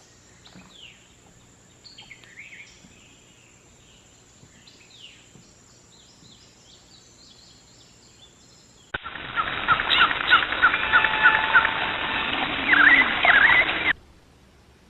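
Wild songbirds chirping faintly, short falling calls. About nine seconds in, a much louder stretch starts abruptly: a steady hiss with quick repeated bird notes, about four a second, and a few sweeping calls, cutting off suddenly about five seconds later.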